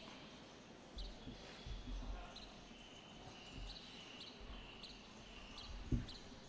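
Quiet hard-court tennis ambience between points: faint short high chirps repeating every second or so, like small birds, and a single dull thud near the end, a tennis ball bounced on the court before a serve.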